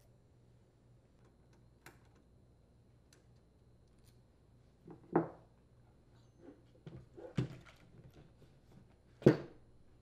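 Handling knocks from a hedge trimmer's plastic and metal housings being turned over and pulled apart on a cloth-covered bench: a few dull thumps with lighter knocks between, the loudest about five seconds in and a little past nine seconds.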